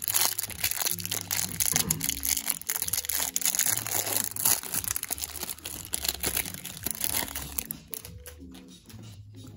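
Clear plastic wrapper on a stack of trading cards crinkling and crackling as it is torn open and peeled off, stopping about eight seconds in. Background music with a repeating bass line runs underneath.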